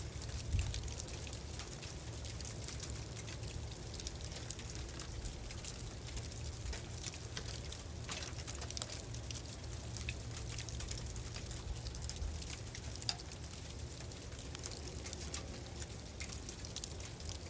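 Sleet falling: a steady scatter of small, fine ticks from the pellets over a low, even rumble, with one sharper tick about three-quarters of the way through.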